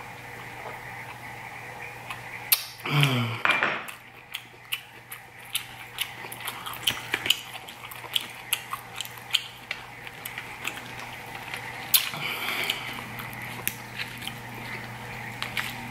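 Close-miked mukbang eating sounds: irregular small clicks and crackles as a grilled lobster tail's shell is pulled apart by hand, with wet mouth noises. About three seconds in there is a short vocal sound falling in pitch.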